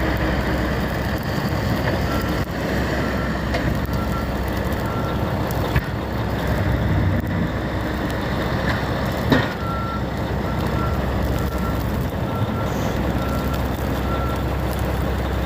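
Snow-removal heavy vehicle's back-up alarm beeping in two runs over a steady engine rumble, with a sharp bang about nine seconds in.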